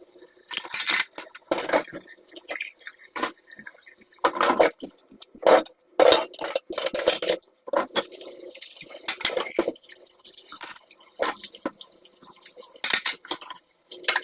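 Water splashing and sloshing in quick, irregular strokes, as in washing by hand in a basin or sink. The sound drops out briefly a few times near the middle.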